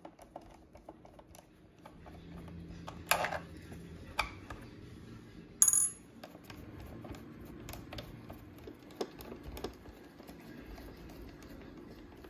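A Phillips screwdriver working small screws out of a robot vacuum's plastic base, making scattered small clicks and scrapes. About halfway through there is one sharp, ringing metal clink, a small screw dropped into a ceramic bowl.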